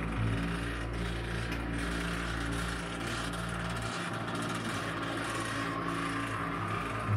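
Electric slide-out mechanism of a 2019 Jayco White Hawk travel trailer running: a steady motor hum with a rough rubbing scrape from the rack-and-pinion gear. The rubbing comes from the slide's rack and pinion rubbing against the trailer frame. The deepest part of the hum drops away about four seconds in.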